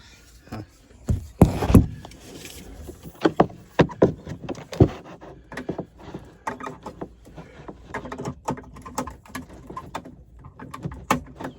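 Irregular knocks, clicks and rustling of hands-on work: handling parts and cords around a furnace's condensate pump while it is plugged back in.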